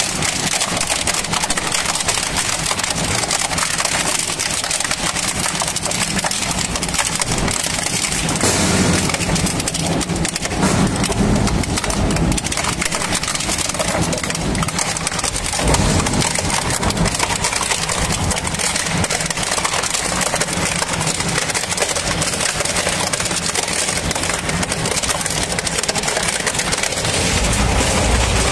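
Shredder machine crushing and breaking up material: a dense, continuous crackle of snapping and splintering. A low engine rumble comes in near the end.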